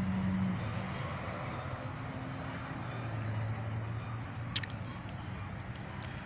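Road traffic: pickups and cars driving past, a steady tyre-and-engine noise with a low engine hum that drops in pitch partway through. One sharp click about four and a half seconds in.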